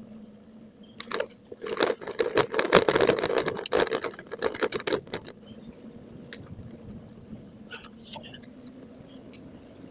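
Bicycle rattling and clattering as it runs over a rough, cracked stretch of path, from about a second in to about five seconds in, then quieter steady riding noise. The audio is sped up to double speed.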